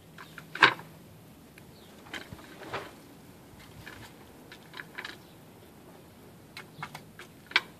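Irregular sharp taps and clicks of cats' paws batting at a hard plastic cat toy, the loudest about half a second in and again near the end.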